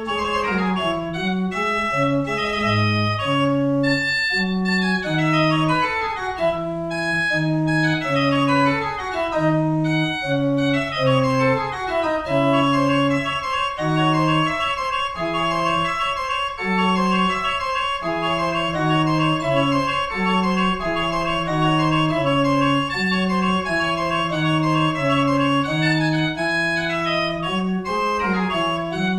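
Pipe organ from 1760 playing solo: a brisk piece with a moving bass line under sustained chords and quick descending scale runs.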